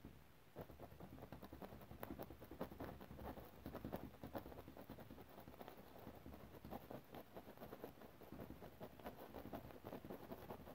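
Faint, quick tapping and scratching of a paintbrush dabbing oil paint onto a stretched canvas, several light strokes a second.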